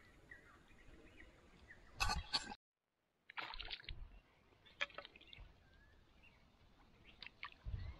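Brief water splashing and sloshing at the pond's edge in two short bursts, about two and three and a half seconds in. Between them the sound cuts out completely for under a second.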